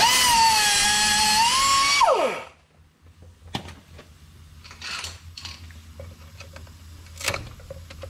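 Pneumatic cut-off tool's wheel spinning at full speed with a high whine for about two seconds, cutting through the CV boot band clamp, then spinning down with a falling whine once the trigger is released. A few light knocks follow.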